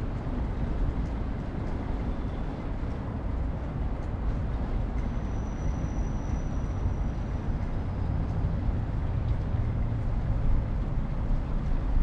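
Steady low rumble of city traffic, a constant wash of vehicle noise with no single event standing out. A faint thin high tone comes in briefly around the middle.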